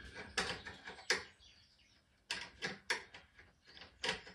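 Irregular light clicks and knocks from hand work on a car headlight's aim-adjusting screw. A quick run of them comes about two seconds in.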